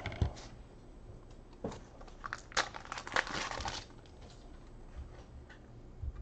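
Crinkling and light clicks from trading-card packs and cards being handled, busiest from about two to four seconds in.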